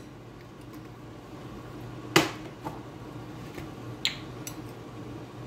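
Kitchenware being handled on a countertop: one sharp click about two seconds in and a lighter one about two seconds later, with a few faint ticks, over a low steady hum.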